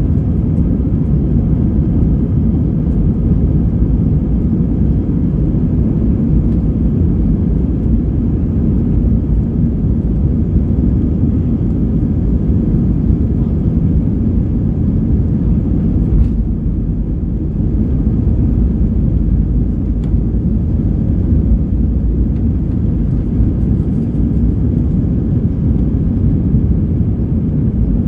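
Steady, deep engine and airflow noise heard inside the cabin of a British Airways Airbus A320-232, an airliner with IAE V2500 engines, under way. The level dips slightly for a moment a little past halfway.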